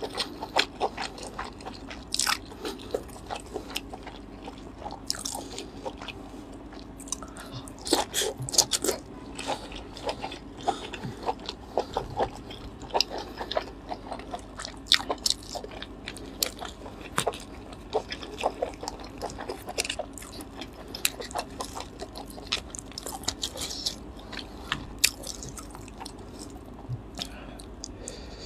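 Close-miked chewing and lip-smacking of grilled spiny lobster meat, with many sharp, irregular mouth clicks and the shell being broken open. A steady low hum runs underneath.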